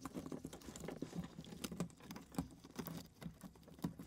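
Gloved fingers working the rubber sealing gasket and plastic fuel pump housing into the fuel tank opening: a quiet run of small, irregular clicks and taps.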